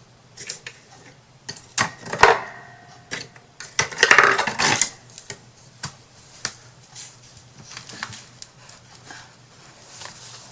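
Small hard objects being handled: scattered clicks and light knocks, with a louder rustling scrape about four seconds in.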